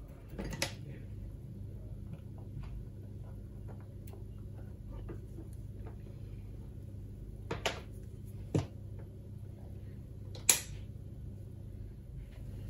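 A few short, sharp taps and clicks of small metal parts and tools handled on a wooden workbench, the loudest shortly before the end, over a steady low hum.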